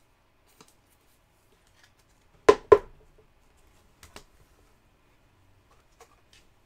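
Two sharp plastic clicks about a quarter second apart, a couple of seconds in, then a few fainter taps, as trading cards in plastic holders are handled and set down on a table.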